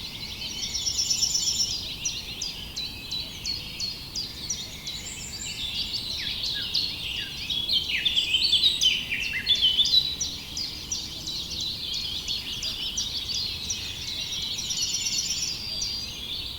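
Several songbirds chirping and singing together in a dense chorus of short, high chirps and quick downward-sweeping notes. A rapid trill comes about a second in and again near the end, and the chirping is busiest around the middle.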